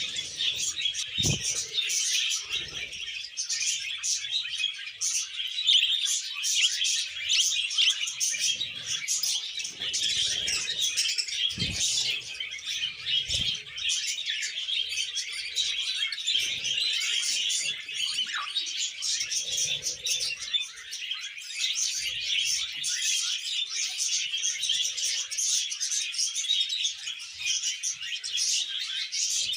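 A flock of small pet parrots chattering and chirping without pause, a dense mix of overlapping high chirps and warbles, with a few soft low knocks here and there.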